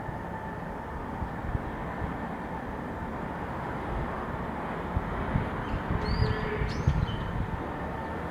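Steady low background rumble with a few low thumps, and about six seconds in two or three short, faint high calls from a brown-eared bulbul, sweeping up and then down.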